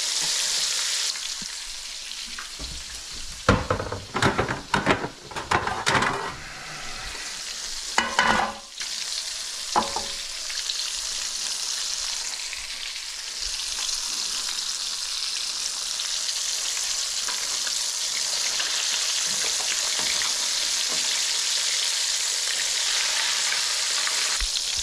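Flour-dredged smelts deep-frying in vegetable oil: a steady, high bubbling sizzle, with a wire spider strainer stirring and swirling the oil. A run of sharp knocks and clatter comes from about 3 to 6 seconds in, and again around 8 seconds.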